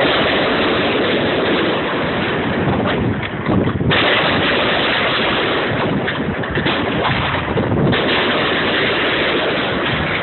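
Fireworks going off in quick succession: a dense, continuous din of bangs and crackle with small surges in loudness.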